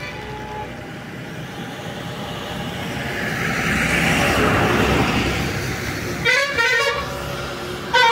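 Vehicle horns honking twice near the end, each honk a wavering multi-tone sound, over road traffic noise that swells and fades in the middle.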